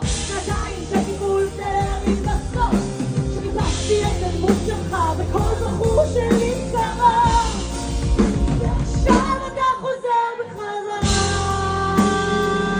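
Live pop-rock band playing, with drums and keyboards under a woman's wordless singing. About ten seconds in the band drops out for a moment, then comes back in with a long, loud held chord.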